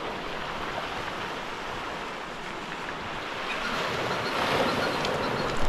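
Steady noise of sea water and wind on the microphone, growing louder about four seconds in.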